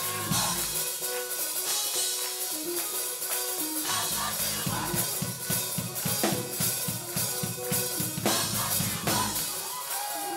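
Gospel music with a drum kit: bass drum and snare hits over held chords and a bass line. There is a busy run of drum strokes in the second half.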